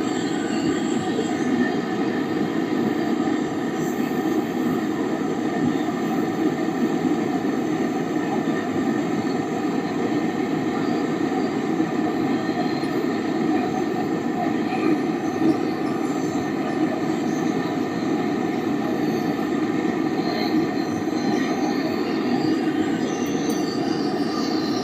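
Gas brazing torch flame burning steadily while a fridge compressor's copper pipe joints are brazed.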